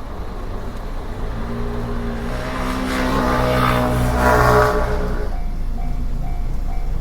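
A train passing through a railway level crossing: a steady humming drone of motors and wheels swells over a few seconds, peaks, and fades. The crossing's warning bell rings in a fast repeating pattern before and after it.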